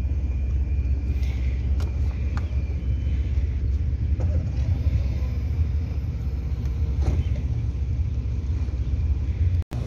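A ferry's engine runs with a steady low rumble, under faint water and wind noise. The sound cuts out for an instant near the end.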